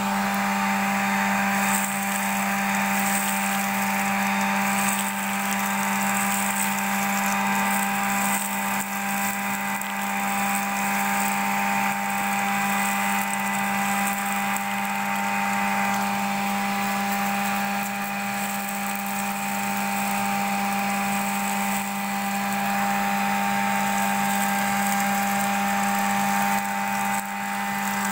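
Homemade paint-bucket vacuum cleaner running steadily, its motor humming with air rushing through the corrugated suction hose as the nozzle is worked over floor debris.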